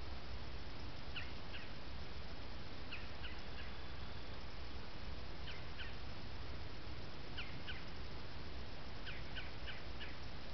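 Steady hiss from a trail camera's microphone with a low rumble beneath, and faint short bird chirps in twos and threes every couple of seconds.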